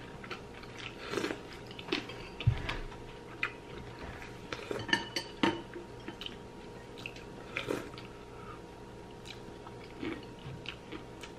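Eating at a table: chewing, and chopsticks clicking against ceramic bowls in scattered short taps, with one dull thump about two and a half seconds in.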